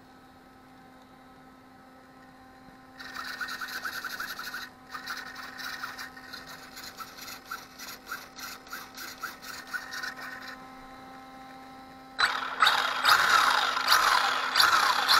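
Rubbing and scraping: a rhythmic scratching from about three seconds in that lasts several seconds, then a louder rasping scrape near the end, over a steady low hum.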